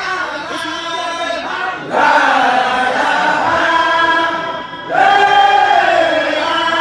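A group of voices chanting a Sufi zikr (dhikr) together, in long, drawn-out phrases; a new, louder phrase starts about two seconds in and again about five seconds in.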